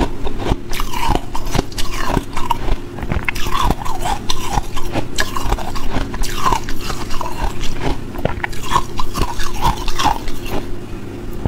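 Ice being crunched and chewed in the mouth, picked up close by a clip-on microphone: an irregular, unbroken run of sharp cracks and crunches.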